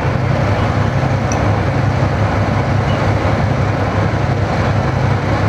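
A vehicle engine running steadily at close range, giving a loud, even low rumble.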